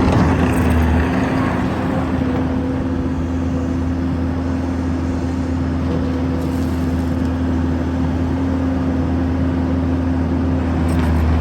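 Kubota SVL75-2 compact track loader's four-cylinder diesel engine running at a steady speed, a little louder in the first second and again near the end.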